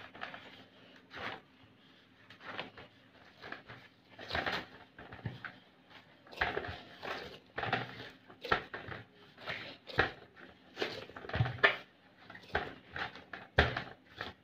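Hands kneading cooked rice-flour dough on a metal plate: irregular soft pushes and slaps of the dough against the plate.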